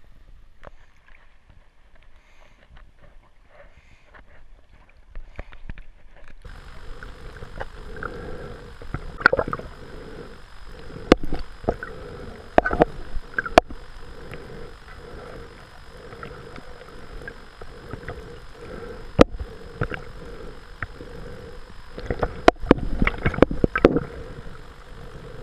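Underwater sound heard through a camera's waterproof housing, starting about six seconds in: muffled water sloshing and gurgling over a steady hum, broken by sharp knocks and clicks as the spearfisherman handles his catch and gear, with a cluster of them near the end.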